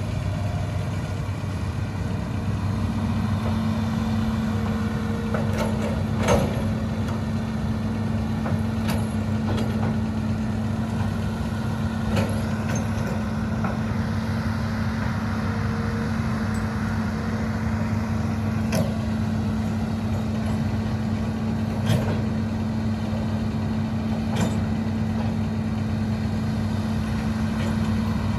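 Hitachi ZAXIS 210LC long-reach excavator's diesel engine running steadily, with occasional sharp knocks every few seconds.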